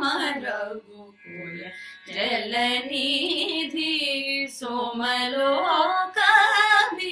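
Two women singing a Carnatic-style devotional song together, their held notes wavering and gliding. A short break about a second in, then the singing resumes.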